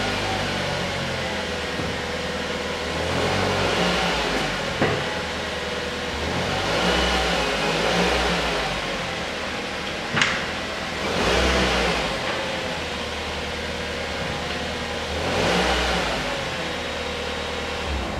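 Mazda 5's four-cylinder engine idling and revved four times, each rev rising and falling back to idle, with a couple of sharp clicks between revs. It is being tested just after a clutch replacement.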